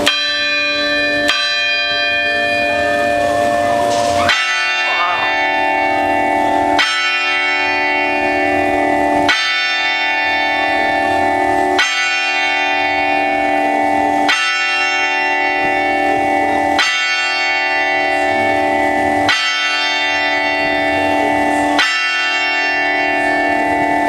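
Clock tower bells striking eight o'clock, heard close up. Near the start a bell sounds twice, about a second apart. From about four seconds in, the hour bell strikes eight times, roughly two and a half seconds apart, each stroke ringing on into the next.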